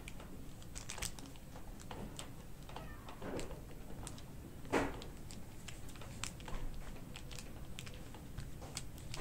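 Soft taps and baking-paper rustle as a hand presses stuffed dough rounds flat on parchment, with scattered small clicks and a louder tap near the middle.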